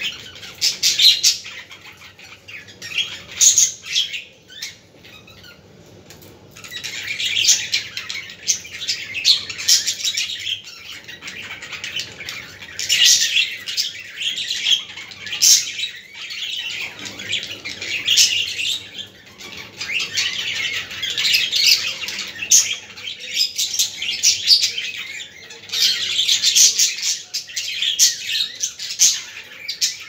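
Several caged budgerigars chattering and chirping together, a busy stream of short high chirps coming in waves, with a quieter lull about five seconds in.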